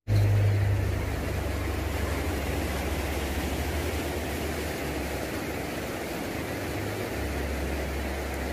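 Steady rush of shallow river water flowing over a concrete weir, with a low rumble underneath, slightly louder in the first second.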